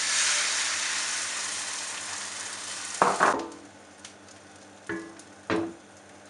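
Beaten egg and coriander mixture poured into hot oil in a nonstick frying pan: a loud, steady sizzle that cuts off suddenly about three and a half seconds in, around a sharp knock. Two more short knocks follow near the end.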